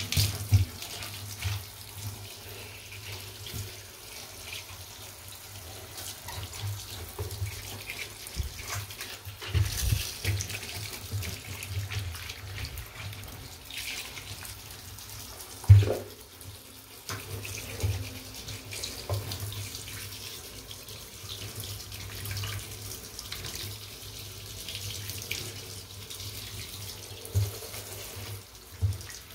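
Water from a hand-held shower running and splashing onto sneakers in a bathtub as a hand rubs them clean, a steady hiss broken by occasional dull knocks, the loudest about sixteen seconds in.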